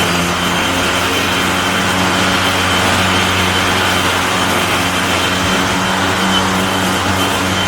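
Cordless electric lawn mower running steadily: a constant hum with a thin high whine over it.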